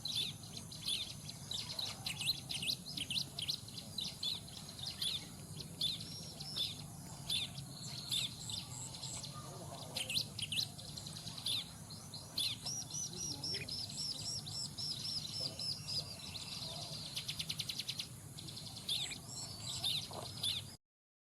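Ciblek (bar-winged prinia) calling in quick, repeated chirps, with a fast rattling trill a few seconds before the end; the sound cuts off suddenly near the end.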